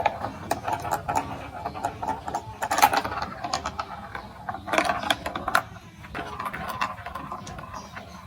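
Rapid, irregular clicking and rattling from a plastic marble-run building-block set, with louder clusters of clatter about three and five seconds in.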